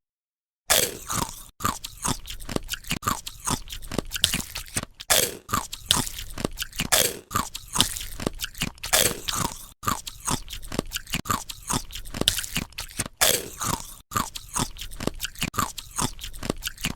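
Continuous rapid crunching and chewing, ASMR-style eating sounds, starting just under a second in, with short falling tones scattered among the crunches.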